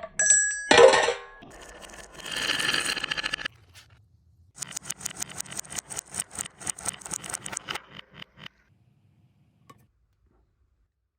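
Marbles on a wooden marble run: a chime ringing at the start, then a loud ringing metallic clang about a second in, a rattling roll, and a quick run of wooden clacks as a marble runs down the slopes. The clacks stop about 8.5 seconds in.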